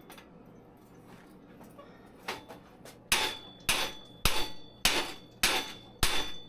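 Hammer blows on a stuck metal part of a bicycle: one blow a little after two seconds in, then a steady run of blows about every 0.6 s, each with a short metallic ring.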